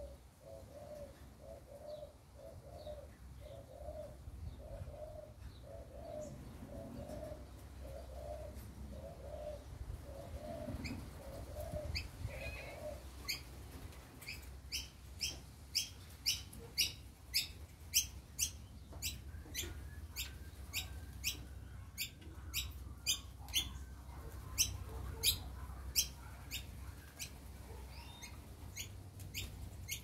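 A dove cooing: a steady run of low, even notes, a little under one a second, for about the first thirteen seconds. After that, short sharp high chirps from a bird repeat about once or twice a second.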